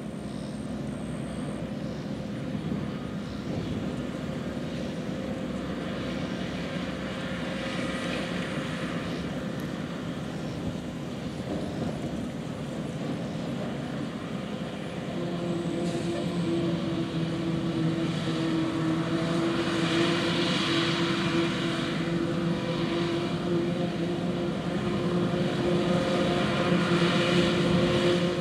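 John Deere 4455's six-cylinder diesel working under load, driving a 3975 forage harvester chopping corn: a steady machine drone with a constant hum. It grows louder about halfway through.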